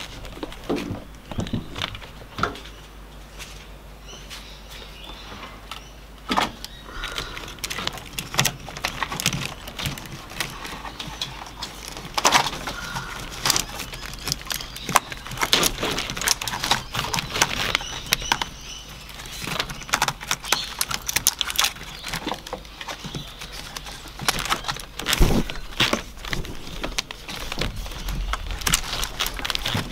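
A cable-tied bundle of rubber spark plug wires being pulled through a tight engine bay by hand: the leads and plastic wiring loom rustle, scrape and click against engine parts. Scattered at first, the handling grows busier about halfway through.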